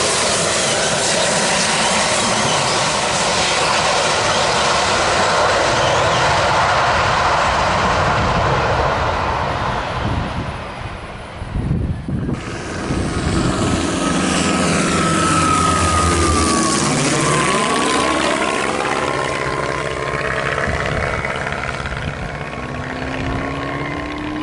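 AV-8B Harrier II's Pegasus jet engine holding a hover: steady, loud jet noise. About halfway through it is close to the ground, with a high whine that slides down in pitch. Near the end a twin-engine propeller plane's tone rises in pitch.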